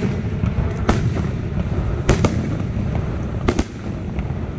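Aerial fireworks shells bursting overhead: three sharp bangs roughly a second and a bit apart, the later two each followed by a quick second crack, over a steady low rumble.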